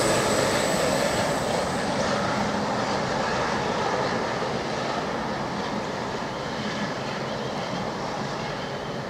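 44 class diesel-electric locomotive working hard up a grade, its steady engine drone fading slowly as the train draws away.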